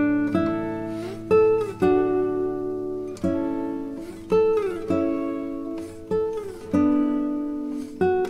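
Background music: chords plucked on a stringed instrument, each starting sharply and ringing down before the next, roughly one a second.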